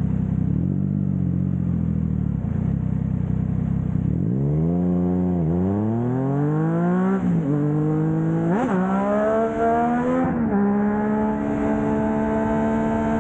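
Triumph Trident 660 inline-three engine through a Blackwidow 200mm aftermarket exhaust: a steady low engine note, then about four seconds in the bike accelerates hard, its pitch rising and dropping back with several quick upshifts. From about ten seconds in it settles into a steady cruise.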